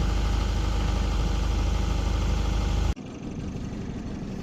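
A sailboat's engine running steadily under way, a low even drone. About three seconds in it drops away suddenly to a quieter, thinner hum.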